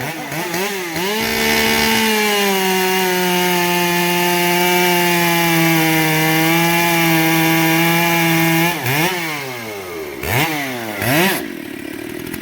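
Two-stroke chainsaw running a stock, unsharpened chain straight out of the box: after a few revs it is held at high speed through a cut for about seven seconds, its pitch sagging slightly under load. It then gives several quick revs near the end and drops back toward idle.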